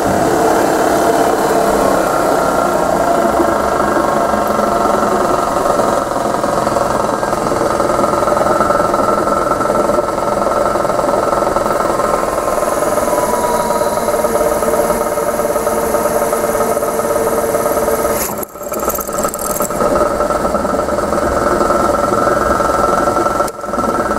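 Buffalo No. 16 floor drill press running, a steady motor hum and whine with the bit drilling into a metal bar held in a vise. The sound drops out briefly twice, once past the middle and once near the end.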